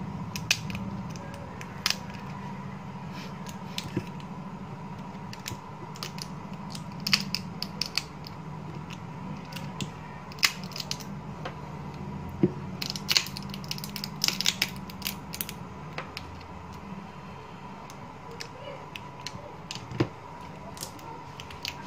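Scattered small clicks and taps of hands handling an opened Vivo Y91 smartphone and its parts, over a steady background hum.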